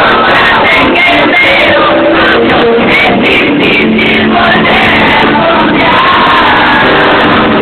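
Loud amplified pop music and singing at a band's soundcheck, with a crowd of fans shouting and singing along throughout.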